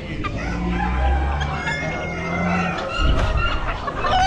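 Many chickens calling together, clucking with roosters crowing, over a steady low hum.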